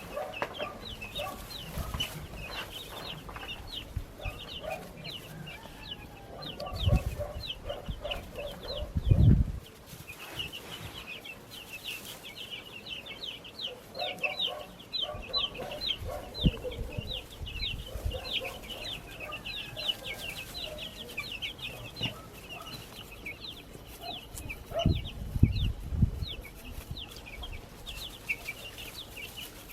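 A brood of baby chicks peeping constantly: many short, high, downward-sliding peeps overlapping, with some lower clucking notes mixed in. There are a few dull low thumps along the way, loudest about seven and nine seconds in and again near the end.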